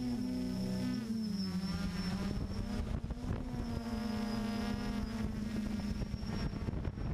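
Quadcopter drone's electric motors and propellers buzzing, heard from its own camera, with a high thin whine above the main buzz. The pitch dips about a second in as the motors slow, then rises again around three seconds.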